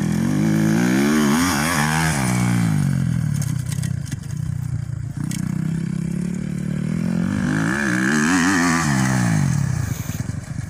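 Motocross dirt bike engines revving as the bikes ride the dirt track, the pitch rising and falling with the throttle. There are two louder surges, about a second in and again around eight seconds in, with a steadier lower engine note between them.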